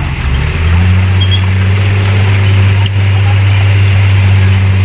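A light dump truck's diesel engine running and powering the tipper while the bed is raised to dump a load of soil. Its pitch rises a little in the first second, then holds as a steady low hum.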